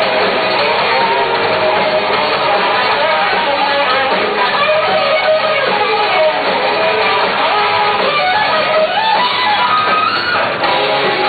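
Rock band playing loudly, with an electric guitar to the fore, strummed and picked over the full band.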